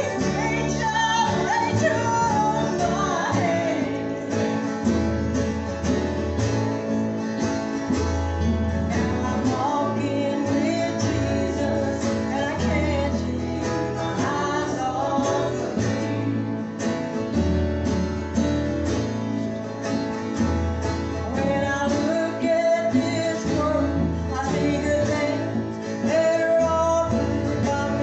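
Live country-gospel group performing: singing over strummed acoustic guitar with a low bass line.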